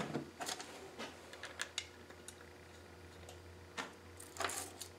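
Steel bolts clinking and clicking as they are picked up and handled on a steel workbench: scattered light ticks, with a sharper knock right at the start and a short cluster of clinks near the end.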